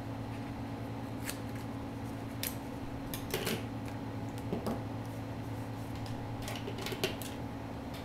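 Small scissors snipping through duct tape on a paper envelope: a handful of short, crisp snips and handling rustles, spread out irregularly, the sharpest near the end, over a steady low hum.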